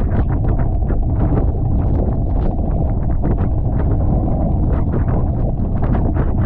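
Strong wind buffeting the microphone, over a Tornado catamaran sailing fast and splashing through the water in quick, irregular bursts of spray.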